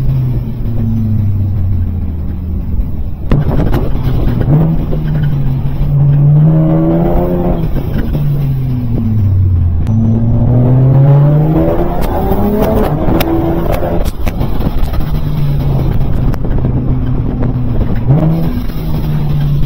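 Nissan Z car's V6 engine running under way, its pitch repeatedly rising and falling as the car speeds up and slows down.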